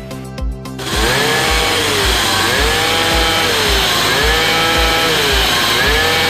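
Background music with a steady beat; about a second in, a 49cc two-stroke pocket bike engine fitted with a larger XRM110 carburettor comes in loud, running and being revved in repeated blips, its pitch rising and falling about once a second. This is a sound test of the engine after the carburettor swap.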